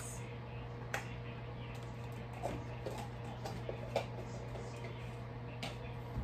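A few light clicks and knocks from handling in a kitchen, over a steady low hum.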